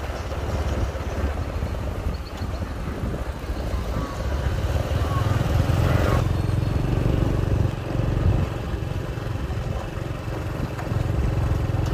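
Motorbike riding along a street: its engine running under a steady low rumble, a little louder from about four seconds in, with traffic around.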